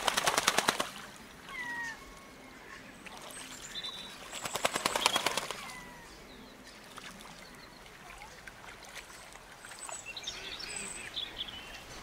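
Outdoor birdsong of short chirps and slurred whistles, broken by two loud, very rapid rattles, each about a second long: one at the start and one about four seconds in.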